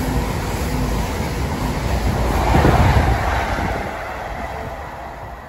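High Speed Train (InterCity 125) passing close beneath at speed: the rumble of its coaches rises to a peak about three seconds in, then fades as it runs away down the line.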